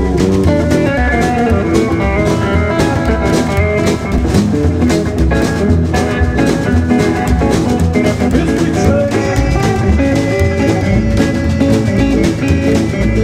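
Live rockabilly band playing an instrumental passage: hollow-body electric guitar leads over acoustic guitar, upright bass and a snare drum keeping a steady beat.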